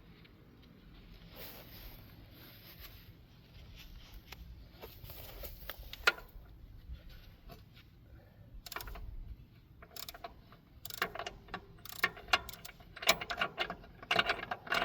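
Metal hand tools clinking and rattling as a wrench is handled and fitted to a jam nut, with scattered clicks at first and a thick run of sharp clinks over the last few seconds.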